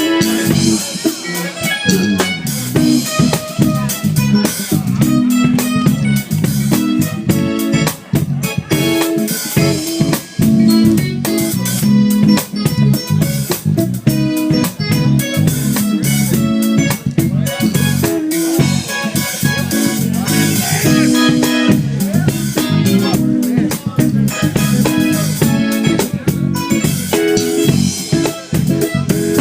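A live band playing a song at a sound check: guitar, bass guitar and drum kit playing together at a steady beat.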